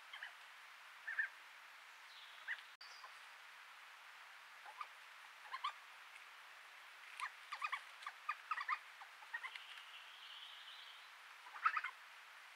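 Badgers chittering: scattered short squeaky chirps, clustered thickest in the middle and again near the end, with a brief thin whistle between them, over the steady hiss of a trail camera's microphone.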